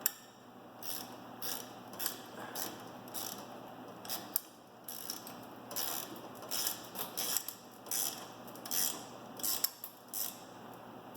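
Ratchet wrench clicking in short repeated strokes, about one to two a second, as a nut is run down onto a bolt.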